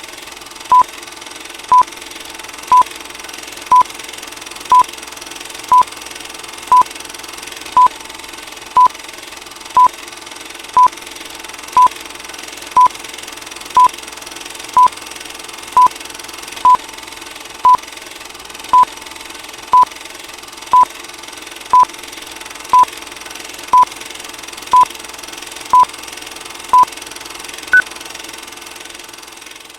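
Old film projector countdown sound effect: the projector running with a steady hum, and a short beep once a second. The last beep, near the end, is higher in pitch.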